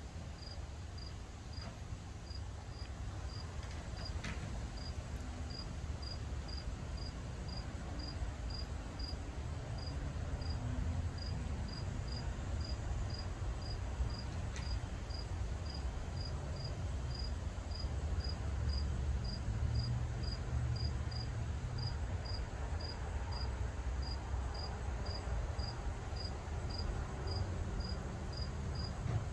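A cricket chirping steadily, one short high chirp about twice a second, over a low steady rumble.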